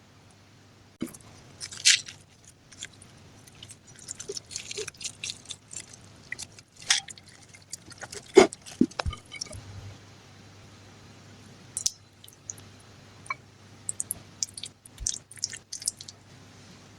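Kitchen food-preparation handling sounds: scattered clicks, taps and soft squishy rustles of utensils and ingredients, with louder knocks about two and eight seconds in.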